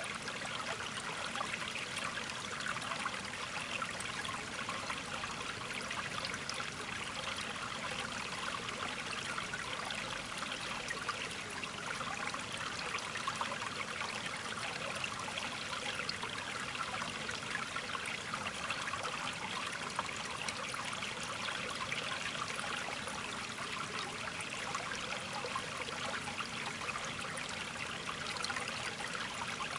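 Steady running, trickling water with an even splashing texture and no breaks.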